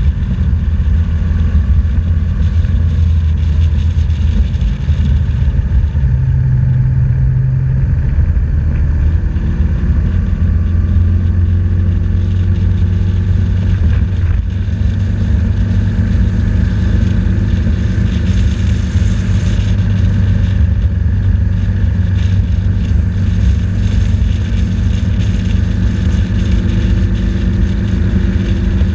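BMW R 1200 GS boxer-twin engine running steadily as the motorcycle is ridden, heard up close from a camera mounted on the bike. The engine note shifts pitch a few times as the speed changes.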